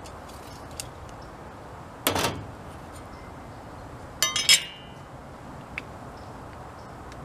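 Metal tools handled on a sheet-metal cabinet top: a short clatter about two seconds in, then a quick run of sharp, ringing clinks about four seconds in as a metal speed square is set down against a metal strip.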